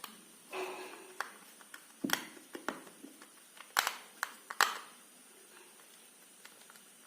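Hands working on the parts of a small Bluetooth speaker being reassembled: a brief rustle, then a run of sharp clicks and taps, the loudest about two, four and four and a half seconds in.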